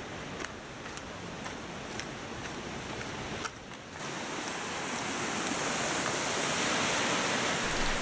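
Rushing water of a mountain stream's cascades: a steady hiss that grows louder through the second half. Faint regular footsteps in the first half.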